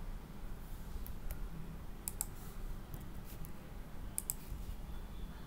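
Scattered clicks from a computer mouse and keyboard. A pair of sharp clicks comes about two seconds in and another pair about four seconds in, over a low steady hum.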